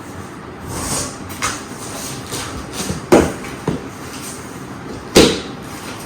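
Packaging being handled while accessories are lifted out of an AV receiver box: rustling with several short sharp knocks and clatters. The loudest knocks come about three seconds and five seconds in.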